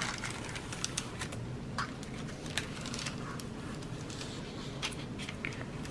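Plastic cover sheet of a diamond-painting canvas being handled, rustling and crackling with many small irregular clicks.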